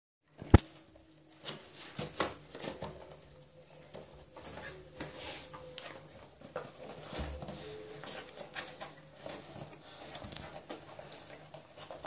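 Dog rummaging in cardboard and paper packaging for hidden treats, with irregular crinkling, rustling and scraping of the cardboard and an egg carton. A sharp knock sounds about half a second in.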